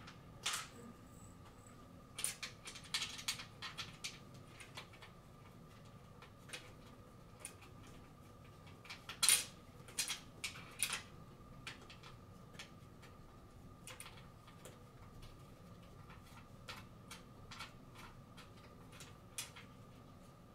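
Small metal wing nuts and washers being handled and threaded by hand onto the bolts of a light fixture's metal frame: scattered light metallic clicks and clinks, with a louder cluster about nine seconds in.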